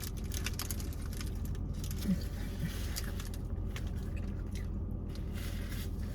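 Steady low hum inside a car's cabin, with scattered faint clicks and rustles of food being handled and chewed.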